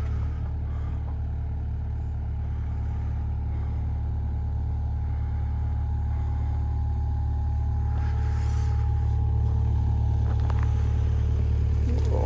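Vehicle engine running steadily: a constant low rumble that grows slightly louder in the second half.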